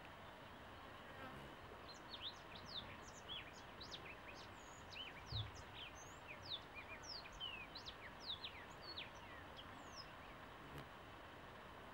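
Birds chirping in a rapid string of short, sharp notes from about two seconds in until near the end, over the steady low hum of honeybees from nearby hives. A soft low thump comes about halfway through.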